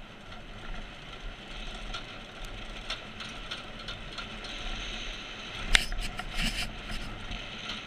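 Baja Doodlebug minibike with no suspension coasting with its engine dead and chain off: a steady rattle and rub of the frame and tyres over rough pavement, with no engine running. About six seconds in, a sharp knock and a few seconds of scuffing, the loudest part, as something brushes against the camera.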